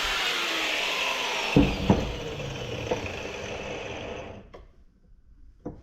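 Power grinder, its cutting disc in a thick steel compressor shell, then let off and spinning down: the loud hissing whine falls in pitch and fades away over about four seconds. A few sharp metal knocks come about one and a half to three seconds in.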